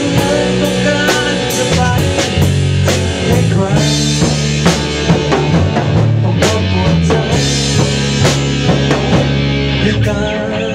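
Rock band playing live: distorted electric guitars over a drum kit keeping a steady beat, the drums prominent with regular kick and snare hits.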